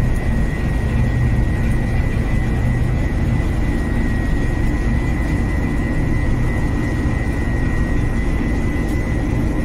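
Gas stove burner running with a steady rushing noise under grilling fish, with a thin steady high whistle throughout.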